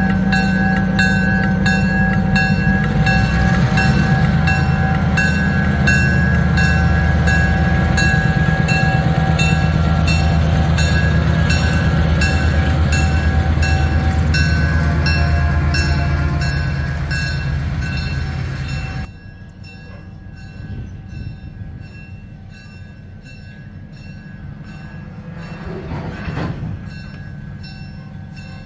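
Diesel switcher locomotive, C&IM No. 31, running loudly as it pulls its passenger train past, with its bell ringing about twice a second over the engine's steady hum. About two-thirds of the way through, the sound drops suddenly to a much quieter background.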